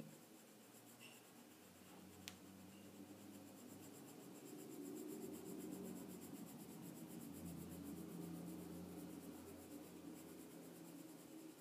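Graphite pencil scratching softly on Bristol paper while dark shading is worked in, faint, and a little louder through the middle. A single sharp click sounds about two seconds in.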